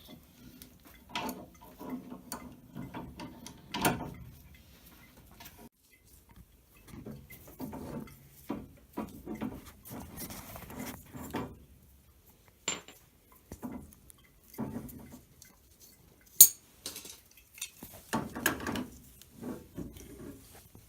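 Wrenches clinking and scraping on a metal pipe union as it is worked loose, in irregular knocks with one sharp metallic click near the end.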